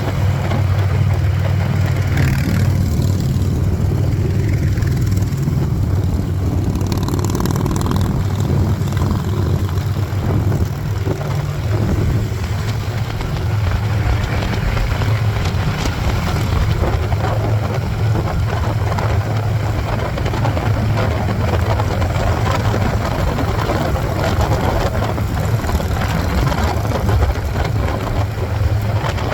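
Motorcycle engines running steadily with a low, even drone.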